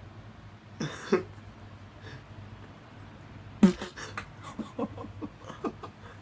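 Short fart sounds: two blasts about a second in, then a louder one followed by a quick run of short low blasts, over a steady low hum.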